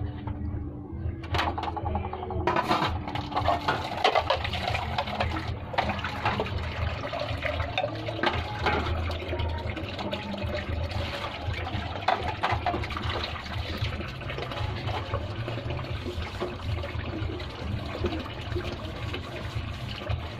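Water running and splashing steadily into a metal basin while something is washed in it by hand.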